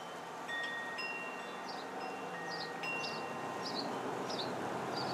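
Chimes ringing, single clear notes at several pitches struck a few times, over light wind noise, with a short high chirp repeating about every two-thirds of a second.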